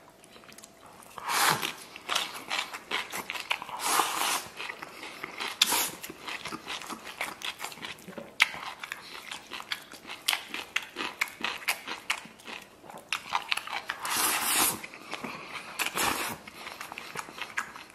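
A man eating rice, beef and crunchy bean sprouts from a stainless-steel bowl held to his mouth: noisy slurping bursts as he shovels food in with wooden chopsticks, with chewing and crunching and short clicks of the chopsticks against the bowl between them.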